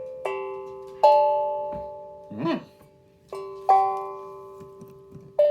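Steel tongue drum struck four times, in two pairs about three seconds apart, each note ringing on and slowly fading under the next. A short hummed "mm" comes between the pairs.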